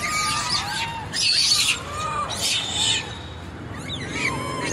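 Rhesus macaques giving shrill squeals and screeches in several short bursts, the loudest about a second and a half in, over short repeated chirps that rise and fall.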